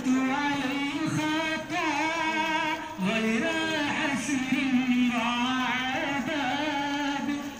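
A man's voice chanting a devotional song in long, ornamented held notes, with a short break about three seconds in.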